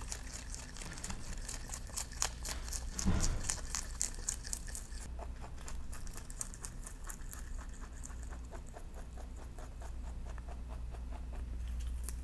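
Domestic rabbit munching leafy greens from a bowl: quick, crisp chewing clicks and the tearing of leaves, busiest in the first half. There is one louder knock about three seconds in.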